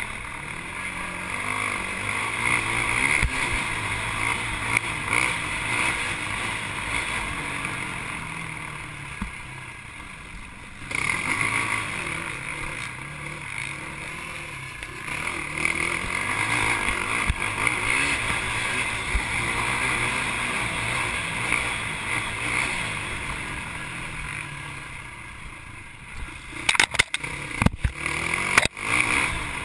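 Racing ATV engine running hard on a dirt trail, its revs rising and falling with the throttle. The engine eases off and quietens for a few seconds about a third of the way in, then picks up sharply. Near the end comes a run of sharp knocks and thumps as the machine crosses rutted ground.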